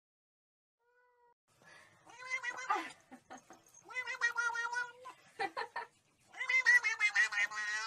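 Cat yowling in three long, drawn-out calls with a wavering pitch, the last one the loudest, starting about six seconds in.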